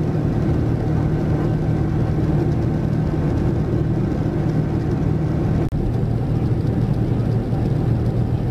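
Boeing 787-9's Rolls-Royce Trent 1000 engines running at climb power, heard inside the cabin beside the engine: a steady deep hum with a thin whine on top. The sound breaks off for an instant about six seconds in, then a similar steady rumble carries on without the whine.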